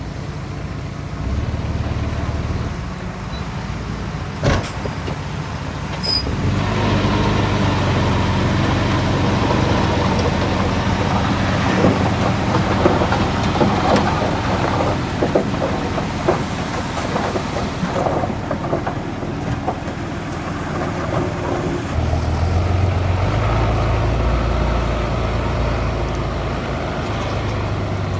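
Heavy diesel earthmoving machinery working: a crawler bulldozer and dump trucks running under load. The engine sound gets louder and busier about six seconds in, with scattered clanks and rattles. A deeper engine rumble comes in a little past the twenty-second mark.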